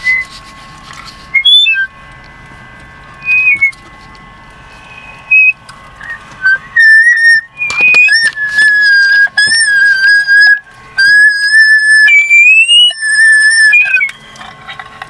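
A high whistle in a string of held notes, mostly on one pitch with slight wavers and one higher rising note, starting about seven seconds in after a few short chirps. A faint steady high electronic tone runs underneath.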